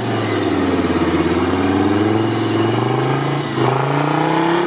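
Off-road 4x4 engine revving, its pitch wandering up and down, with a brief dip about three and a half seconds in.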